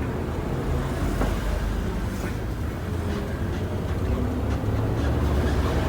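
Steady low rumble of travel heard from inside a moving intercity bus, with a few faint knocks and rattles.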